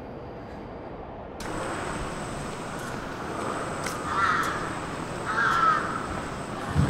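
A crow cawing twice, about four and five and a half seconds in, over steady background noise.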